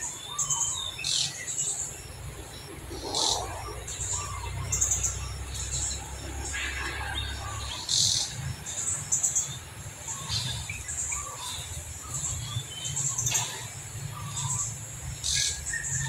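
Birds chirping, with short high chirps repeating about once a second, a few sharp clicks, and a steady low rumble underneath.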